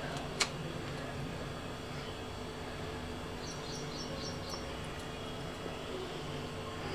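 Steady low room hum with one sharp click about half a second in, and a quick run of about six high chirps from a small bird a little past the middle.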